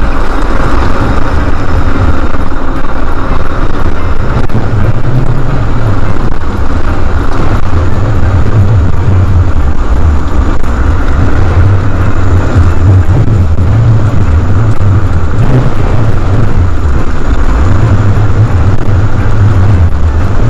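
Wind buffeting the microphone and road noise from a mobility scooter riding along a paved road: a loud, steady low rumble that swells and eases.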